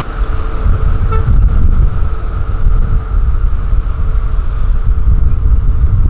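Loud, uneven low rumble of heavy road-construction machinery running, mixed with wind buffeting the microphone, over a faint steady tone.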